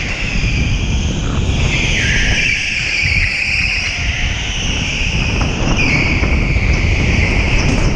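Electric go-kart motor whining at speed, its pitch dropping and climbing back twice as the kart slows and accelerates, over a steady low rumble.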